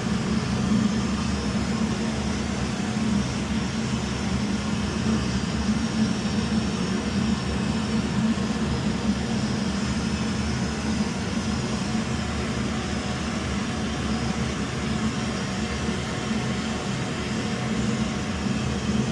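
Steady low mechanical drone of running heating equipment, with no distinct knocks or changes.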